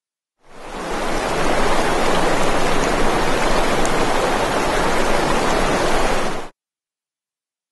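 A steady rushing noise with no tone or rhythm, fading in out of total silence just after the start and cutting off suddenly about a second before the end.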